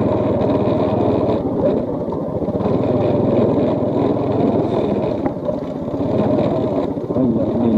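Automatic motor scooter being ridden along a gravel track, its engine running steadily under a rushing haze of road and wind noise.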